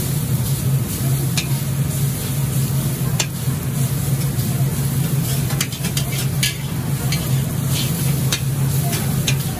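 Hokkien mee noodles frying in a wok: a steady sizzle as a metal spatula stirs and tosses them, with the spatula clicking and scraping against the wok every second or so. A steady low hum runs underneath.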